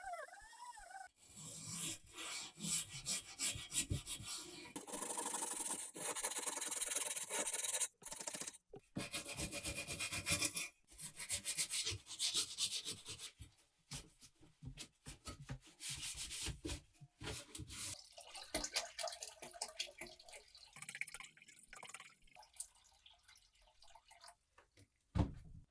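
Hand rubbing with an abrasive on the rusty oil lamp, in runs of scratchy strokes with short breaks, growing sparser in the later part.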